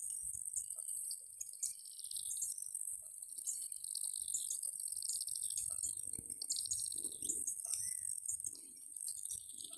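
Waterside ambience: a steady high insect buzz with birds chirping and trilling over it.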